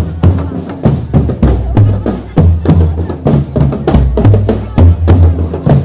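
Marching drum band playing: snare and bass drums striking a steady, driving beat, with pitched parts sounding over the drums.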